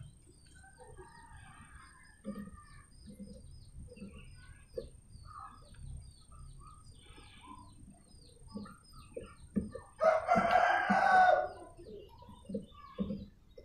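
A rooster crows once, about ten seconds in, lasting about a second and a half, the loudest sound here. Faint clicks and small high chirps come and go around it.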